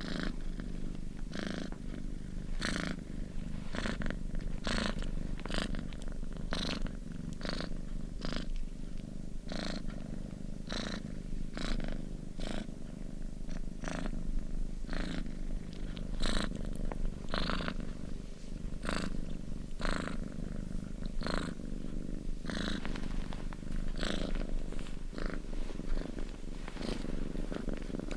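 Domestic cat purring steadily: a continuous low rumble with a breathy rasp on each breath, about once a second.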